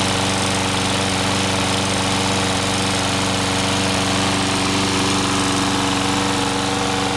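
Toro 22-inch Recycler lawn mower's single-cylinder four-stroke Briggs & Stratton Quantum engine running steadily at an even speed.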